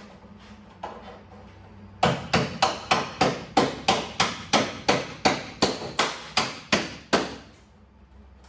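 Hammer striking a homemade heavy-duty tool to drive it into a car body panel seam and separate the panel: about seventeen sharp metal blows, roughly three a second, starting about two seconds in and stopping about seven seconds in.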